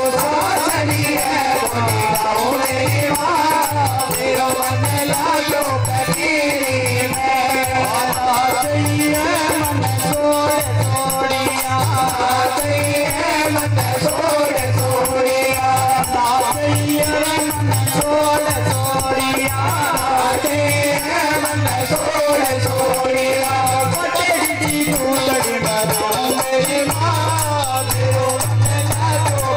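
Marwari devotional bhajan sung over a steady low beat about one and a half times a second and fast high percussion, amplified through loudspeakers.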